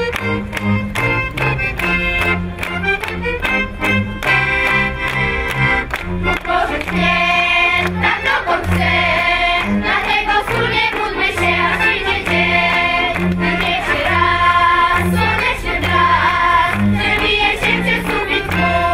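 Highlander folk band of accordion, violins and double bass playing a song with a steady pulsing bass beat. A crowd of voices joins in singing about six seconds in.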